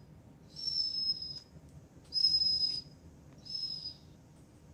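Vizsla dog whining: three high-pitched whines, each shorter than a second, each falling slightly in pitch.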